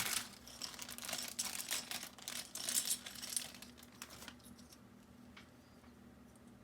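Packaging rustling and crinkling with light clinks of small parts, as unboxed items are handled. It stops about four seconds in.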